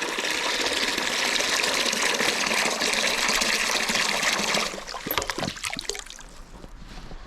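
Water gushing from a yard hydrant into a bucket as it fills, cut off abruptly about two-thirds of the way through, followed by a few light knocks.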